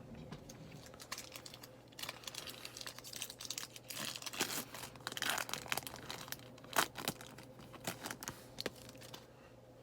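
A trading-card pack wrapper being torn open and crinkled by hand, a run of irregular crackles and rips with a sharp crack about seven seconds in.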